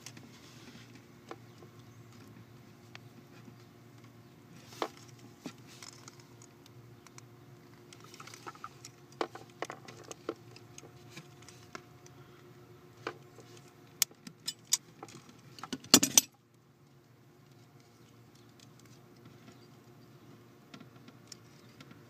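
Small clicks and light rattles of a plastic wiring-harness connector, its wires and a pair of pliers being handled as a crimped terminal pin is pushed into the connector. A quick run of clicks comes about two-thirds through, the last one the loudest, over a faint steady hum that drops away just after it.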